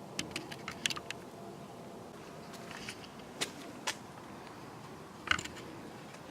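A steady drone with a faint hum, the unexplained 'strange sound' that the recorder says is heard again, with a few scattered clicks.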